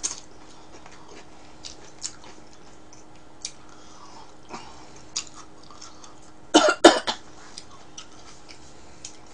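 A woman coughs three times in quick succession, about two-thirds of the way through. Faint, scattered mouth clicks from eating fill the gaps.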